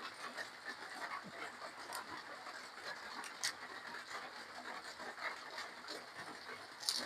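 A person eating close to the microphone: chewing and small wet mouth clicks in a steady crackly run, with a couple of sharper clicks, one about three and a half seconds in and one near the end.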